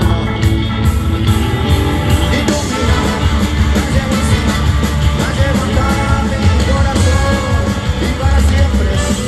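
Live ska-rock band playing loud: horns, electric guitar, bass, drum kit and percussion, with singing over the top.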